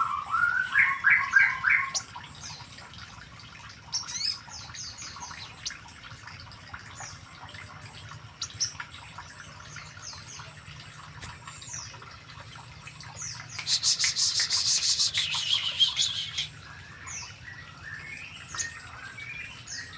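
Bird chirping and calling in short repeated notes, with a loud, fast, high trill lasting a couple of seconds about two-thirds of the way through and scattered chirps around it.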